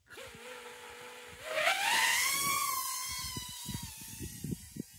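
BetaFPV Pavo20 cinewhoop's brushless motors spinning up at a steady idle whine, then throttled up about one and a half seconds in with a loud rising whine as the drone lifts off. The whine then settles and slowly drops in pitch as it flies away.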